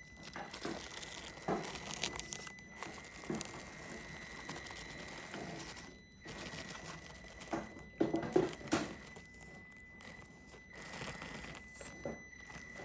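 Traxxas TRX-4M 1/18 micro crawler with low-speed crawler gears climbing rock: its electric motor and gearing give a steady high whine that stops briefly a few times, under the crunch and scrape of the tyres on gritty rock. The crunching is loudest about eight seconds in.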